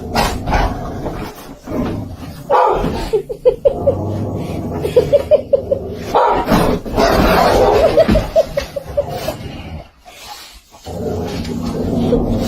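A dog making noises, mixed with a person laughing in several quick runs of short repeated pulses.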